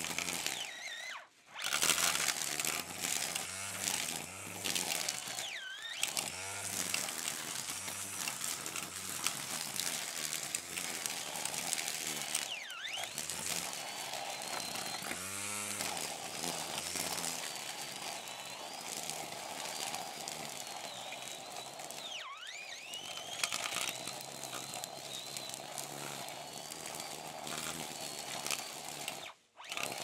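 Brush cutter running, its engine revving down and back up several times so the whine dips and rises in pitch. The sound cuts out briefly about a second in and again just before the end.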